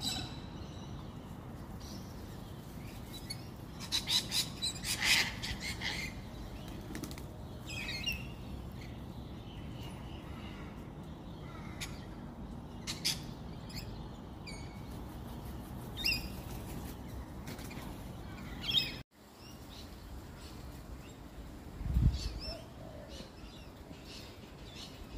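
A mixed flock of feral pigeons, cockatoos and lorikeets feeding on a lawn: a flurry of wing flaps, then short high chirps scattered through. Near the end there is a single low thump.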